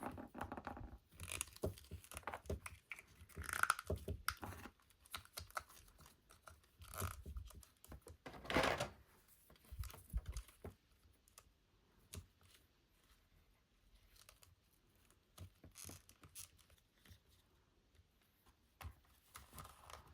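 Doll packaging being handled and opened: intermittent rustling, tearing and small clicks, with a few louder bursts in the first half.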